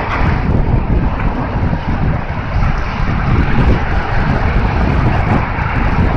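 Wind buffeting the microphone over a steady rumble of car traffic on the bridge roadway.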